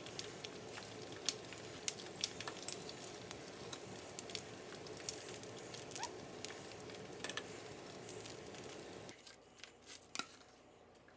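Chicken wings deep-frying in a pot of hot oil: a steady sizzle with frequent crackles and pops, which cuts off about nine seconds in.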